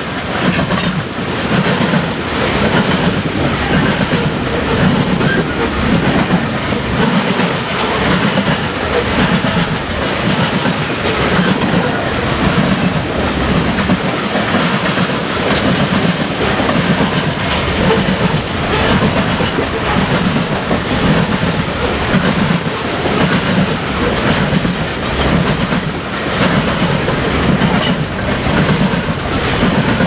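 Coal cars of a long freight train rolling past. Their steel wheels clack over the rail joints in a steady, regular beat over a continuous rumble.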